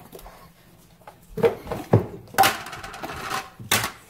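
Kitchen clatter: plastic ice cream tub lids set down on a countertop and metal spoons knocking and scraping in the tubs, a handful of short knocks and scrapes.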